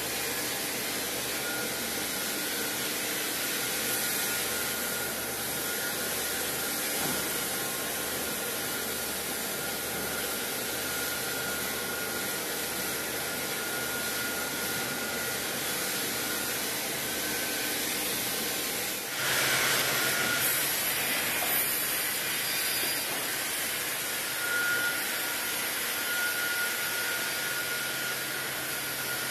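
Automated sawmill timber line running: a steady mechanical din of roller conveyors and machinery, with a faint thin whine throughout. About two-thirds of the way in, the sound shifts abruptly to a slightly louder din with a low steady hum.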